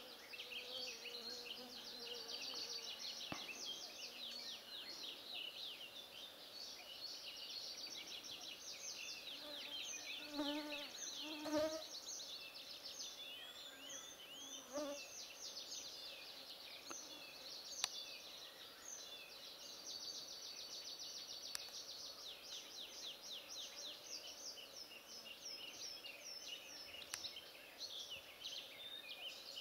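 A chorus of songbirds at a birch-wood edge, many quick trills and chirps repeating without a break. A few short, lower calls stand out about a third of the way through.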